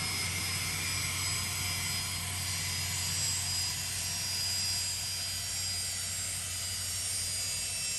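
Gulfstream G-IV's Rolls-Royce Tay turbofan engines at low taxi power as the jet rolls past, a steady rushing noise with a thin high whine.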